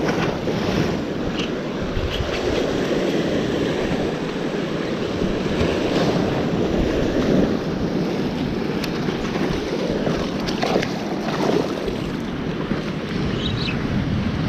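Surf washing steadily over the rocks, with wind buffeting the microphone.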